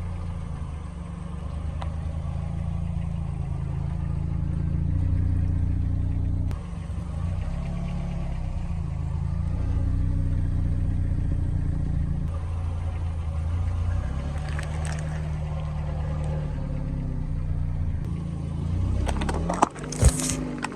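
Car engine running at low speed, its pitch shifting a few times as the car creeps forward. There is faint crackling about fifteen seconds in, then a cluster of crunches and sharp pops near the end as the tyres crush objects in their path.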